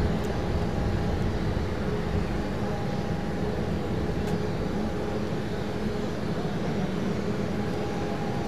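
Airbus A380 with four Rolls-Royce Trent 900 jet engines on final approach with gear down, a steady jet rumble with a faint constant whine from the approaching airliner.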